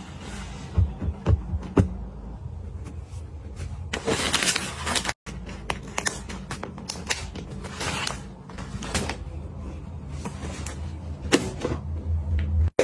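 Small items being handled and set down: scattered clicks and taps with a burst of rustling about four seconds in, over a steady low hum.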